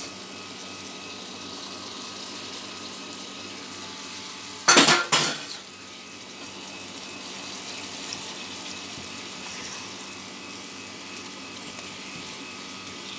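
Tuna, peppers and onions sizzling steadily in a frying pan. About five seconds in, a utensil clatters twice against the pan.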